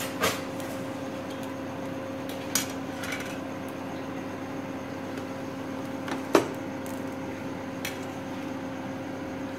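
Steady electric hum from the cooktop heating a pan of uttapam, with a few short sharp clicks or taps, the loudest about six seconds in.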